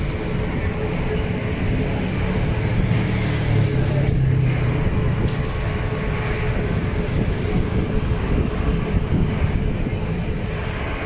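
Road traffic running past, cars and buses, as a steady low rumble with a constant hum through it.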